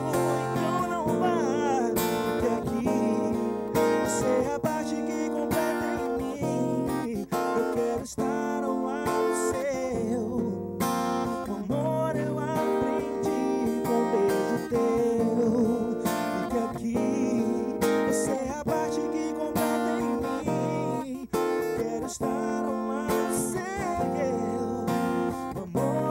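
Music: strummed acoustic guitar with a man singing over it.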